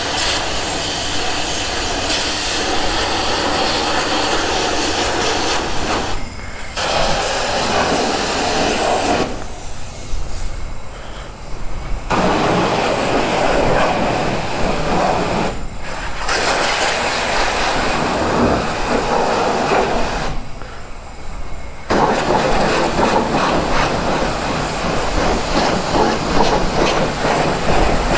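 High-pressure rinse spray from a self-serve car wash wand hitting a motorcycle, a loud steady hiss and spatter. It cuts out four times, twice for about two seconds.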